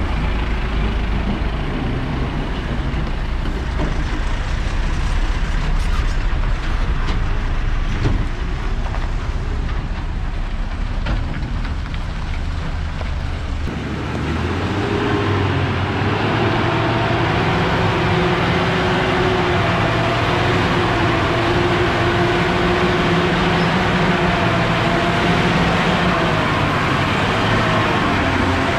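Diesel lorry engines: first a deep low rumble as a lorry pulls away round the bend. Then, from about halfway, a heavily laden 12-wheel lorry's diesel engine takes over, pulling slowly with a steady droning note.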